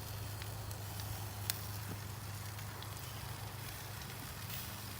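Red snapper fillets sizzling on a grill, a steady hiss with scattered sharp crackles and pops, the loudest about one and a half seconds in.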